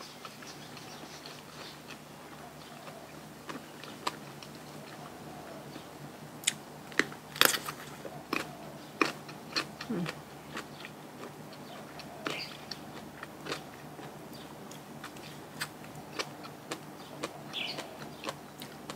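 A person eating close to the microphone: chewing with irregular sharp crunches and clicks from bites, busiest around the middle.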